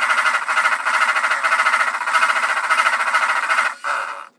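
Electric hand mixer running at speed, its beaters whipping egg whites for macaron meringue to the soft-peak stage. It falters briefly near the end and then switches off.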